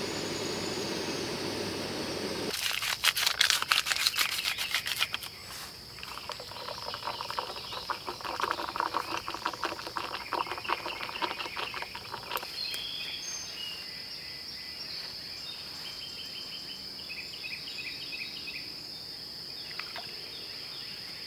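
A steady low hum stops suddenly about two and a half seconds in, followed by some ten seconds of dense crackling and clicking. A steady high-pitched insect drone and scattered bird chirps fill the rest.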